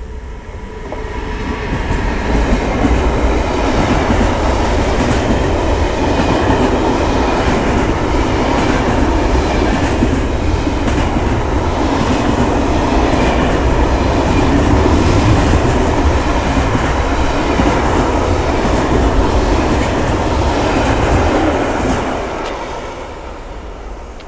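Long container freight train hauled by a Siemens ES64 electric locomotive passing at speed, with a steady clickety-clack of wheels over rail joints. The rumble builds over the first two seconds as the locomotive goes by, holds while the wagons roll past, and fades near the end as the train moves away.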